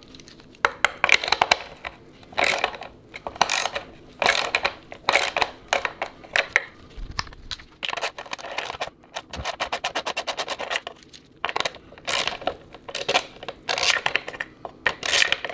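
Metal clinks, clicks and scrapes of hand tools working bolts and parts free on a dirt bike's subframe. About ten seconds in there is a fast, even run of ratchet clicks.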